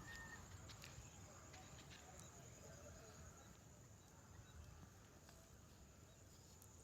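Near silence: faint outdoor ambience with a steady high hiss and a few faint scattered clicks.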